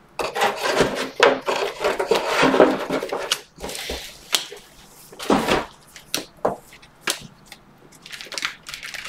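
A stack of baseball cards being flipped through by hand, card by card: irregular crisp clicks and snaps of card stock with soft sliding and rubbing between them.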